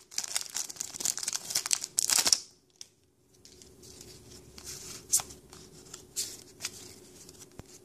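Foil Pokémon card booster-pack wrapper crinkling and tearing as it is pulled off the cards, for about two and a half seconds. Then quieter rustling with a few light clicks of cards being handled.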